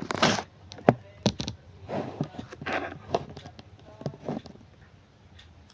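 Scattered clicks and rustling from a multimeter and its test probes being handled while a resistance measurement is set up, with a few short soft bursts between them.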